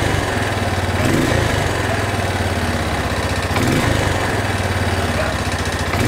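A Bashan 250 ATV's engine running steadily, with an even, rapid firing beat.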